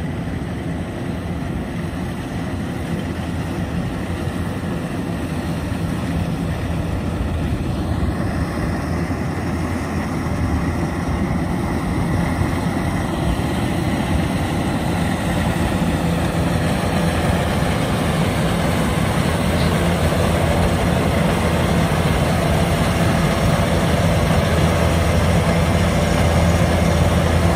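Diesel engine of a tracked rice combine harvester running steadily with a deep low hum, growing gradually louder.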